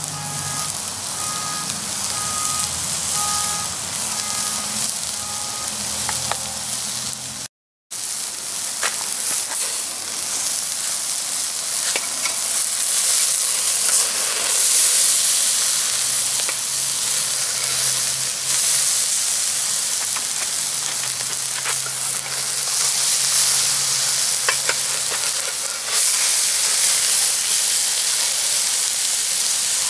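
Hamburger patties sizzling loudly on the wire grate of a small charcoal grill, fat spitting onto the hot coals. A metal spatula clicks against the grate a few times as the patties are turned.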